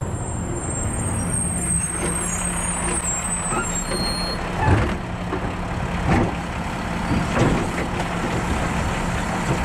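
Automated side-loader garbage truck's diesel engine running steadily as the truck pulls up beside the curbside carts, with a few knocks and clanks around the middle.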